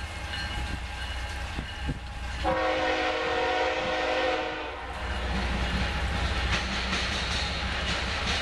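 Diesel freight locomotive air horn sounding once for about two seconds, several notes at once, from an approaching BNSF train. After it the low rumble of the train's engines grows, with rain falling.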